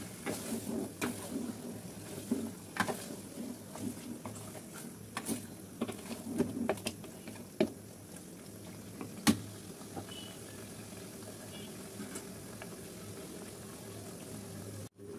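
A hand mixing raw beef pieces with spice paste in an aluminium pot: irregular wet squelches and knocks of meat against the pot, busiest in the first half, with one sharp knock about nine seconds in. A steady low hum underneath.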